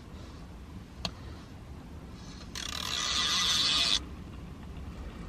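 Backing liner being peeled off double-sided adhesive tape: a single rasping tear lasting about a second and a half, starting midway through, after one light click about a second in.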